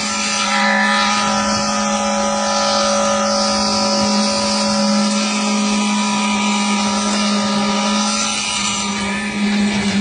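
Concrete mixer pump running steadily, a loud machine drone with a strong low hum and several steady higher tones over it.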